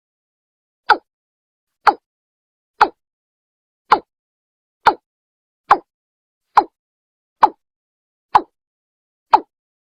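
Watercock (Gallicrex cinerea) call: short, sharp notes repeated evenly about once a second, about ten in a row.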